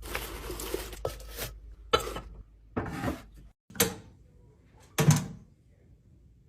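Kitchen containers and items handled and set down: a run of separate clatters and rustles, about five bursts, the last a little after five seconds in.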